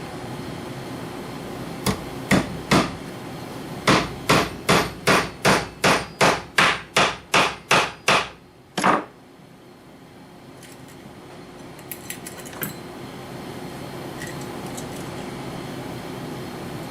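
Hammer driving tacks through leather into a wooden rifle rest: three taps, then a quick, even run of about a dozen blows at roughly three a second, and one last blow. A few light clicks follow over a steady background hum.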